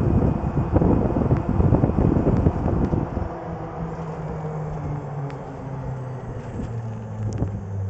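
Royal EV electric golf cart driving at about 26 mph, with wind buffeting the microphone. A little after three seconds in, the buffeting drops away, leaving a quieter steady low hum that shifts in pitch a few times.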